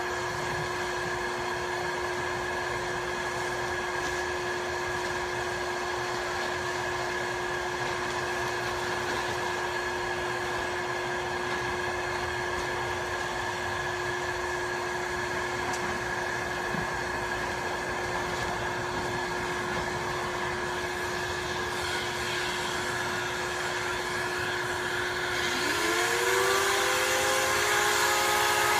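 A steady motor drone. About 25 seconds in, a Paint Shaver Pro's motor starts up with a rising whine and grows louder.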